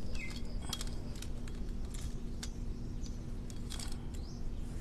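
Small scattered clicks and rustles of a phone and clip-on microphone being handled, over a steady low hum, with two brief faint chirps near the start and about four seconds in.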